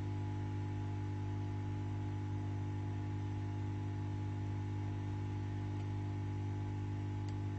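Steady electrical hum: a deep tone near 100 Hz with a stack of overtones and a faint hiss, holding level without change.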